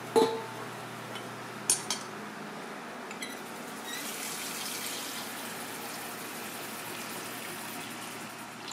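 A stainless-steel bowl rings once from a knock just after the start, and two short clicks follow about two seconds in. From about four seconds in, tap water runs steadily into the bowl, filling it around the blanched leaf.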